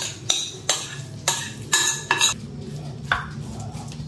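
A utensil knocking and scraping against a baking dish while kibe dough is spread over the filling: about seven short clinks, mostly in the first three seconds, over a low steady hum.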